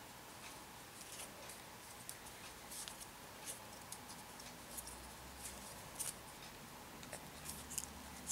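Faint, scattered light rustles and ticks of rolled-paper weaving tubes being bent and braided by hand.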